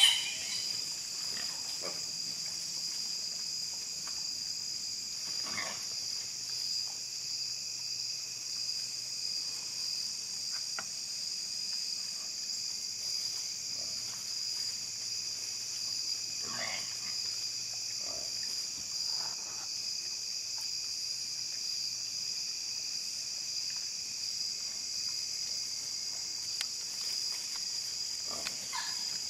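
Steady high-pitched chorus of insects, with feral hogs grunting and squealing a few times now and then. A brief loud sound comes at the very start.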